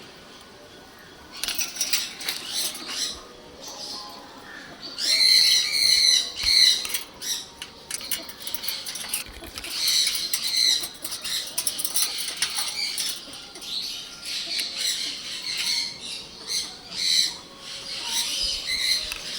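Blue green-cheeked conure giving short, repeated high chirps and squawks, loudest about five to seven seconds in.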